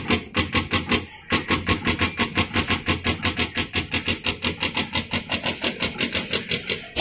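CCD vision glue-dispensing machine at work, clicking rapidly and evenly at about six clicks a second, with one brief pause about a second in.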